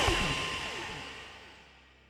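Background music fading out, with several falling pitch sweeps, down to silence just before the end.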